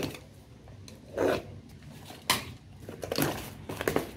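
Packing tape on a cardboard parcel being slit with a box cutter and the cardboard flaps pulled open: four short rips and scrapes, the first about a second in.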